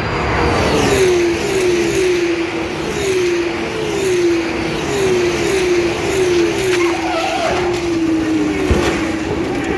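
Formula 2 cars' turbocharged V6 engines at full racing speed, passing one after another, each engine note falling in pitch as the car goes by. Under them is a steady rush of air and tyre noise, and there is one sharp bang near the end.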